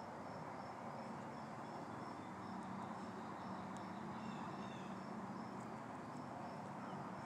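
Faint insects chirping in short, evenly repeating high notes over a steady outdoor hush.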